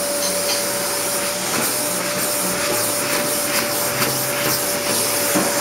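Vacuum cleaner running steadily: a hiss of rushing air with a constant high motor whine.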